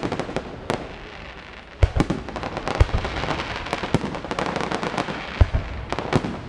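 Aerial firework shells bursting overhead: a string of sharp bangs with dense crackling between them, the crackling thickening from about three seconds in. The heaviest bangs come about two seconds in and again near five and a half seconds.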